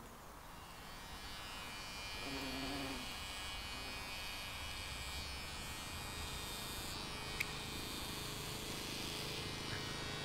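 Insects buzzing steadily and faintly, with a high-pitched drone that swells over the first couple of seconds. A single sharp click comes about seven seconds in.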